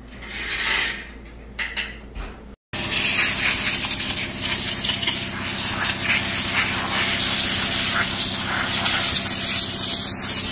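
About two and a half seconds in, a compressed-air blow gun starts a loud, continuous hiss and keeps going, blowing dirt off an automatic transmission case. A steady low hum runs under it.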